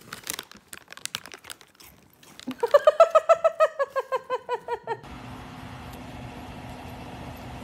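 A dog gives a rapid string of short, pitched barks, about eight a second, for roughly two and a half seconds. The pitch rises slightly and then falls off. Light scratching comes before the barks, and a steady low hiss follows from about five seconds in.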